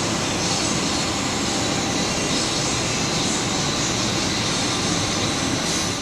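Steady rushing roar of air in a paint spray booth, with a high hiss that swells and eases a little, as of a spray gun in use.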